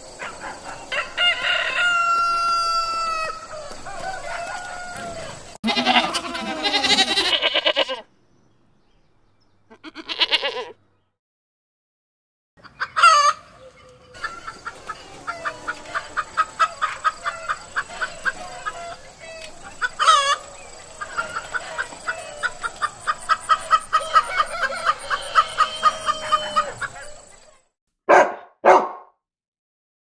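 Chickens: a rooster crowing near the start, then a hen clucking in a long, even run of short clucks with a few louder calls among them. Two short calls near the end.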